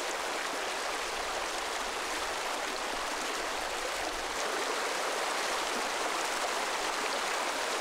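Stream water flowing, a steady even rush with no breaks or changes.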